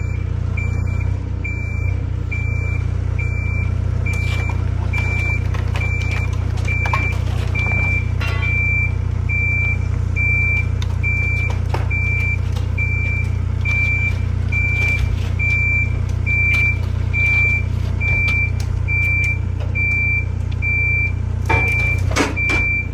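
Heavy diesel machine running steadily while its reversing alarm beeps evenly, a little more than once a second. There are a few knocks near the end.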